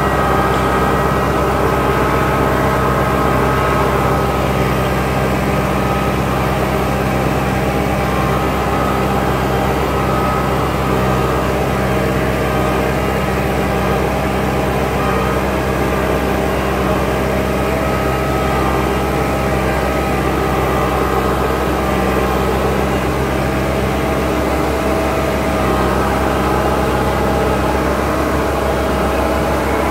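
Case 100 HP farm tractor's diesel engine running steadily, heard from the operator's seat as the tractor works across a flooded paddy.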